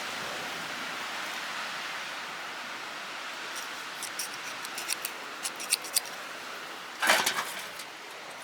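Hand rivet gun being worked: a run of short metallic clicks, then a louder metallic rattle about seven seconds in, as the tool fails to set the rivet.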